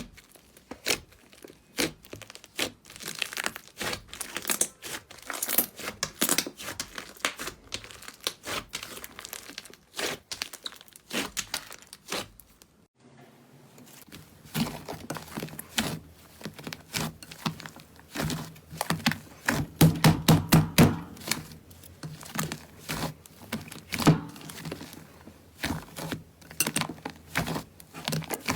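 Slime being squeezed, stretched and poked by hand: a dense run of sticky crackles, pops and clicks. It breaks off briefly about thirteen seconds in, then goes on with a faint low hum under it, loudest about twenty seconds in.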